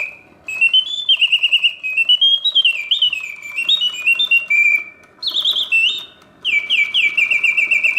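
Mechanical bird song from a 1967 Reuge double singing bird cage, its bellows-driven whistle playing in continuous mode: rapid trills and rising and falling chirped phrases, with brief pauses about five and six seconds in.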